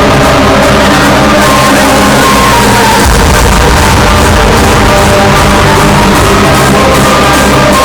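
Hardstyle dance music played very loud over a concert sound system, recorded from within the audience and pushed close to full scale, so it sounds crushed and unclear. The deep bass fills in about three seconds in.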